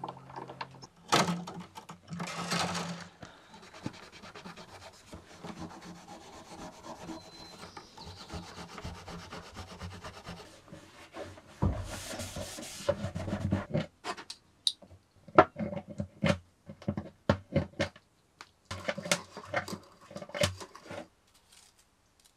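Old strings being taken off a steel-string acoustic guitar: the slack strings rub and scrape over the wooden body and soundhole. Scattered light clicks and taps from handling the strings come in the second half.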